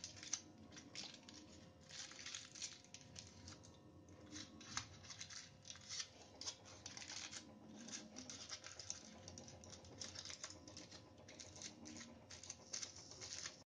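Silver aluminium foil and red foil wrapping paper crinkling faintly as they are folded around a chocolate bar by hand, a continuous run of small irregular crackles.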